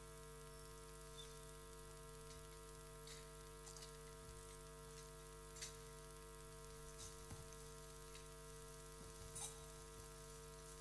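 Near silence: a steady, faint electrical hum with hiss, broken by a few faint clicks.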